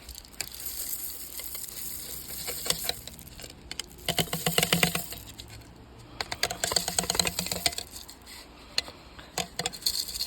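Sunflower seeds poured into a small feeder, a dense rattling patter of many tiny clicks, loudest in two bursts a couple of seconds apart.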